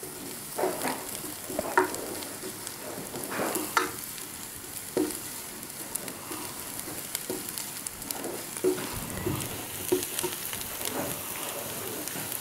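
Chopped onions and garlic paste sizzling in oil in a large black pan, with a steady high hiss. A wooden spatula stirs them, scraping against the pan bottom every second or so.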